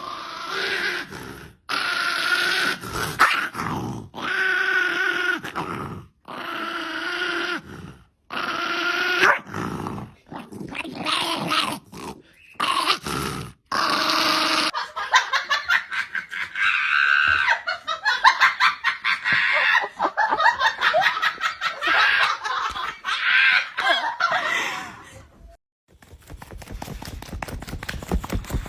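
Dogs barking, whining and growling in a string of short clips that cut abruptly one into the next. Near the end a fast, even tapping takes over.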